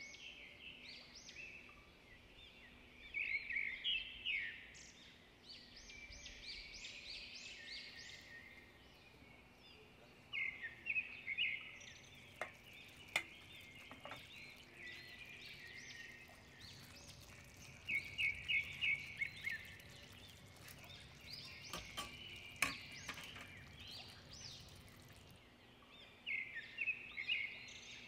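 A small bird repeating a short song phrase of quick high chirps every several seconds. A few faint clicks are heard along with a low steady hum.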